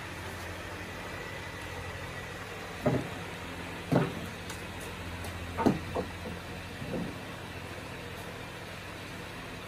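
A steady low hum with five dull knocks spread over a few seconds in the middle, the loudest a little past halfway.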